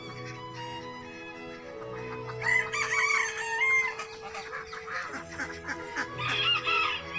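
Birds calling with rising and falling cries, about two and a half seconds in and again near the end, over background music with long held low notes.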